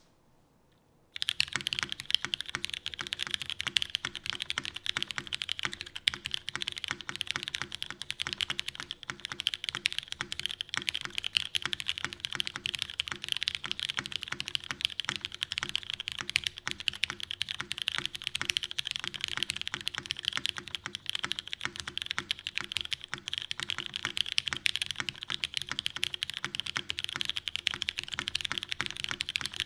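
Fast, continuous typing on a custom mechanical keyboard with lubed Cherry MX Brown tactile switches on an aluminium plate and GMK ABS keycaps, a steady dense clatter of keystrokes. The typing starts about a second in.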